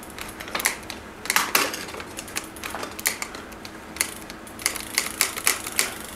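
Mountain bike handlebar shifter being clicked through its gears again and again, a run of sharp ratchet clicks at an uneven pace of a few per second, worked to spread fresh lubricant through a shifter that is acting up.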